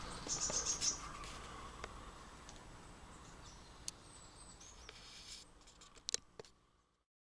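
Faint outdoor woodland ambience with birds chirping and a few sharp clicks, fading out to silence just before the end.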